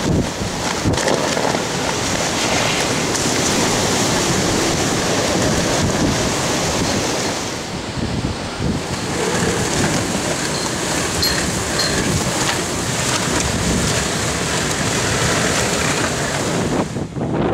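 Hurricane winds rushing and buffeting the microphone: a loud, steady rush of noise that swells and eases with the gusts.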